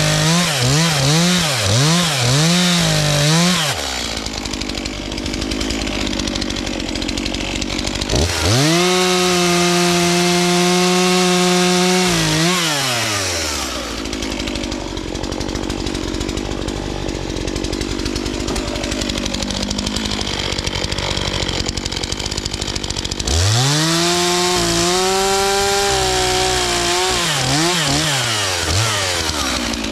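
Stihl MS 251 45 cc two-stroke chainsaw revving: the throttle is blipped several times at the start, then held at high revs twice, each time rising and dropping away again. Between the rev-ups the saw runs lower and rougher.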